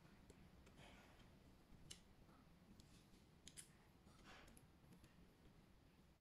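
A handful of faint, scattered clicks of a hex key and small screws being worked out of a power wheelchair's plastic armrest controller, over near silence.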